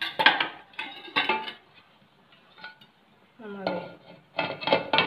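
Spoon scraping and clinking against the metal pot of a pressure cooker as rice is stirred, then the cooker lid clattering against the pot as it is fitted and closed near the end.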